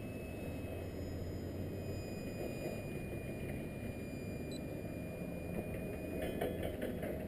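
Distant jet airliner flying high overhead: a steady low rumble.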